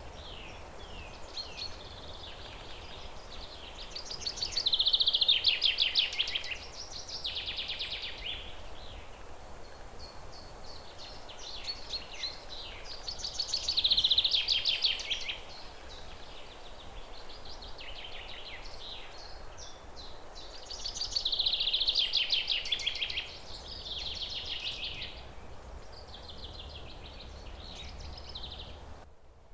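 A songbird singing repeated phrases of quick notes between about 2 and 6 kHz, the loudest ones fast trills that come about every eight seconds, over a steady background hiss. The recording cuts off abruptly near the end.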